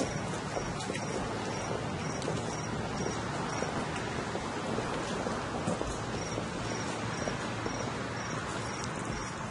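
Steady shuffling of many feet as a column of uniformed firefighters walks slowly past on pavement. Over it, a faint high chirp repeats about three times a second, stopping for a couple of seconds in the middle.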